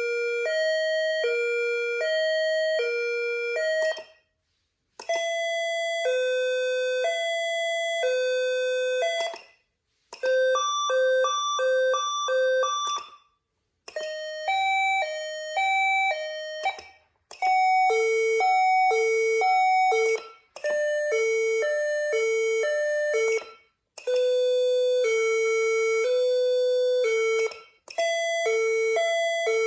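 Whelen CenCom Sapphire electronic siren cycling through a run of different stepped two-tone and multi-tone patterns, each playing for three or four seconds with a brief break before the next. The alternating fixed-pitch hi-lo notes are typical of its international-style tones.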